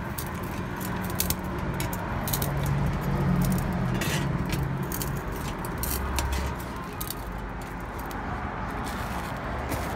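Screws being driven by hand screwdriver into a perforated sheet-metal tray: irregular small metallic clicks and scrapes, over a steady low hum.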